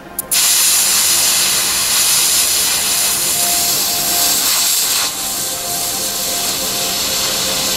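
Steady hiss of HHO oxyhydrogen gas mixed with ambient air streaming from a small copper nozzle onto a glowing platinum catalyst, heating it without a flame.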